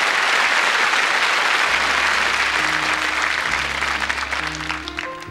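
Studio audience applauding, the clapping fading away near the end, while the song's soft intro starts underneath with low bass notes and keyboard chords from about two seconds in.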